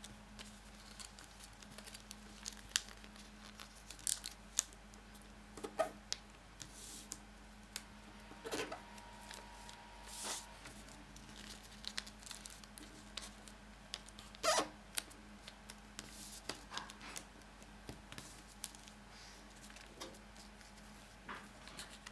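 A sheet of origami paper being folded and creased by hand on a wooden table: irregular crinkles, rustles and light taps.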